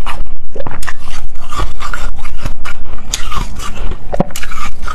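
Mouth biting into and chewing a big lump of fluffy shaved ice, an irregular run of sharp, crisp crunches several times a second.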